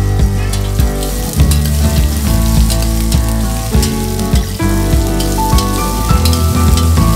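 Background music with a melody over the sizzle of sponge gourd pieces frying in oil in a steel pot as they are stirred.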